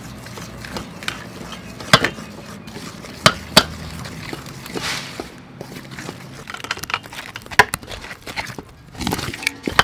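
Wooden spoon stirring flour and raw egg in an aluminium mixing bowl while eggs are cracked against it, giving a run of sharp knocks and clinks on the metal. The loudest come about two seconds in, twice around three and a half seconds, and near eight seconds.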